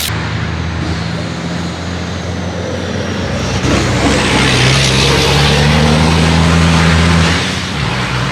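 A turbodiesel racing truck's engine running hard as it passes, getting louder from about three seconds in, peaking, and easing off near the end. A faint high turbo whine falls in pitch over the first few seconds.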